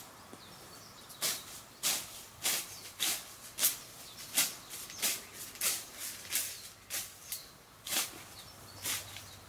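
Hand sickle cutting through weeds and grass stems: a run of short, sharp rasping swishes, about one every half second to second, starting about a second in.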